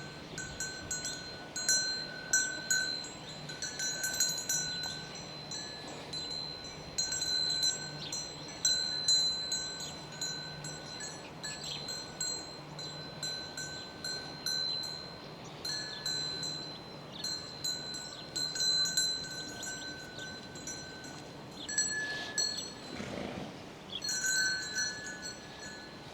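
Swiss cowbells on grazing cattle clanking irregularly, at least two bells of slightly different pitch ringing out as the animals move.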